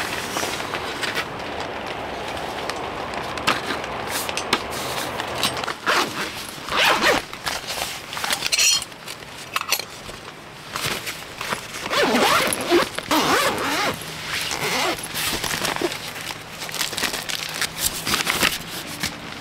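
Camping gear being handled: zippers on bags and a tent door rasping, fabric rustling and light knocks, coming in short irregular bursts. A steady rain hiss runs under the first several seconds.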